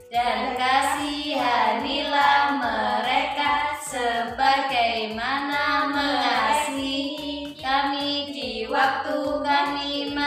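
Several female voices singing the Islamic prayer for one's parents in unison, in a chant-like melody, over backing music with a steady beat.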